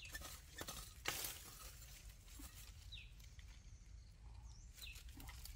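Dry bamboo leaves and twigs crackling in a few short snaps as hands work in the leaf litter, then quieter. A bird gives a short falling chirp twice, about two seconds apart, over a low steady rumble of outdoor background noise.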